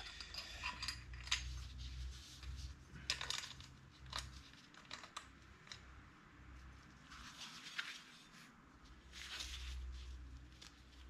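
Scattered small clicks and metallic scrapes of hand work as hose clamps on the heater core pipes are lightly tightened, with two longer raspy stretches of about a second near the middle and near the end.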